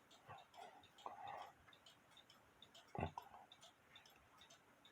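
Near silence with a few faint small clicks, and one sharper click about three seconds in.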